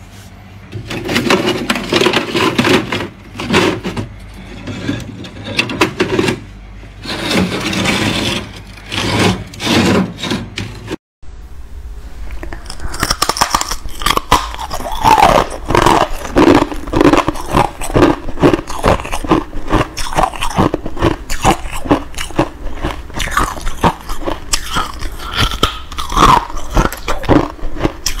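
Thick freezer frost being scraped, in rough strokes of a second or two each. After a short break about 11 seconds in, close-miked biting and chewing of crisp freezer-frost flakes, a dense run of sharp crunches.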